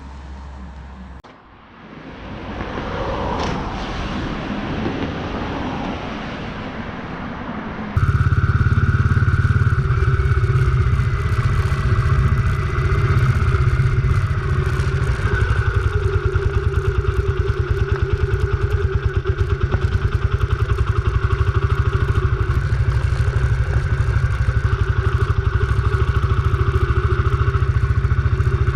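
Kawasaki Estrella motorcycle's single-cylinder engine running. Its sound swells over the first few seconds, then after an abrupt change about eight seconds in it runs steady and loud with a fast, even pulse.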